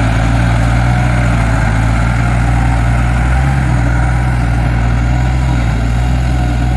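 Diesel engine of a Kubota crawler combine harvester converted into a rotary tiller, running steadily as the machine tills a flooded paddy.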